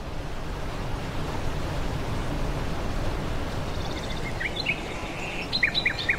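Steady rush of whitewater churning through a river rapid. From about four seconds in, a songbird adds short, high chirps, with a quick run of three or four near the end.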